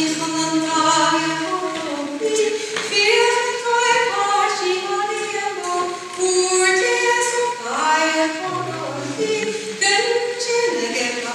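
A woman singing a song solo and unaccompanied, moving between long held notes.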